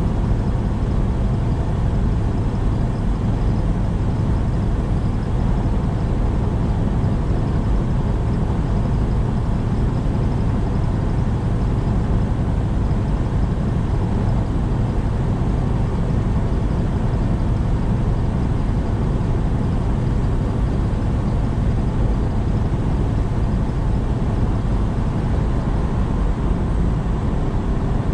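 Semi-truck driving steadily: a constant low engine drone with road noise, unchanging throughout.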